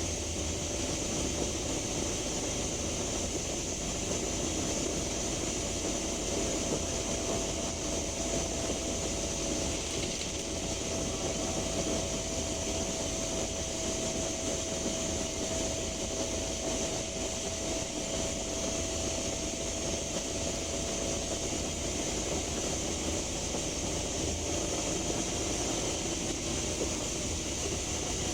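Inside a Scania K310UB bus at motorway speed: the 9.3-litre five-cylinder Scania DC9 engine runs steadily under throttle, with road rumble and a constant whooshing hiss and a faint steady whine. The whoosh is an unexplained fault that comes only when the bus accelerates, and it sounds unlike a broken turbocharger.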